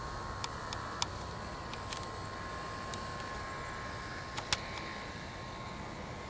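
Wind rumbling on the microphone, with a faint steady high tone and a few sharp clicks, the loudest about four and a half seconds in.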